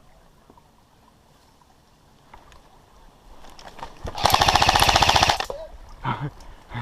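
Airsoft electric gun firing a full-auto burst of about a second and a half, with rapid evenly spaced shots, about four seconds in. Shorter, softer sounds follow near the end.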